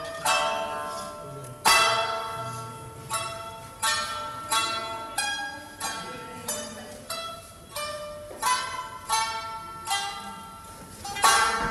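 Solo Tsugaru shamisen playing single notes, each struck sharply and left to ring out and fade, in an unhurried, uneven phrase.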